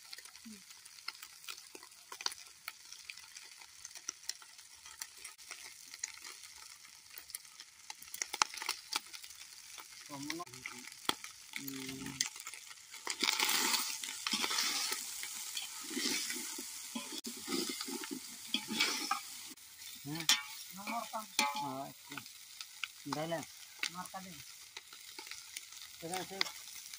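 Chicken pieces sizzling as they fry in an aluminium pot, with a steel spoon stirring and scraping against the metal in frequent clicks and scrapes. The sizzle swells for a couple of seconds about halfway through.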